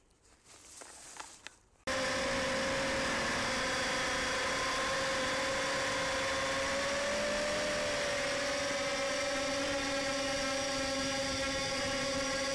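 Hermit 145 V2 micro quadcopter's motors and propellers whining in flight, heard through the HD camera mounted on the quad. The whine starts suddenly about two seconds in and holds steady, its tones drifting a little in pitch.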